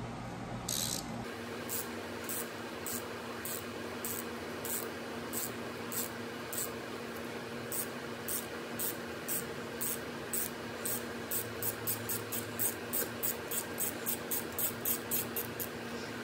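Small 3/8-inch hand ratchet clicking as it backs out a small, easily broken bolt threaded into the engine's lower case. The clicks are spaced out at first and quicken to about three or four a second near the end.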